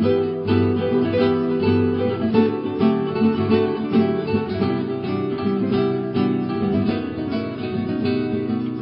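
Instrumental acoustic guitar music, plucked and strummed.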